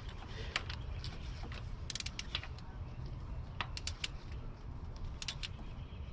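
Hand ratchet wrench clicking in short quick runs of a few clicks, with scattered single sharp clicks of tools on metal.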